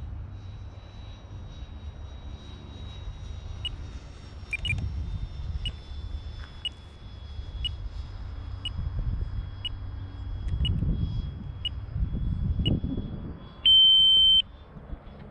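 Electronic beeps once a second, about ten in a row, ending in one longer, louder tone near the end: the pattern of an RC radio transmitter's flight timer counting down and running out. Underneath, the faint whine of the 80mm electric ducted fan jet slides slowly down in pitch, with wind rumble on the microphone.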